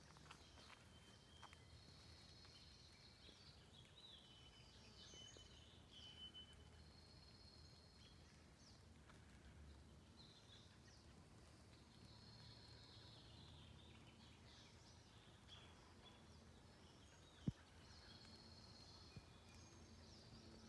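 Faint birdsong: a songbird repeats a short high trilled phrase every few seconds over quiet woodland background. One sharp click about seventeen seconds in.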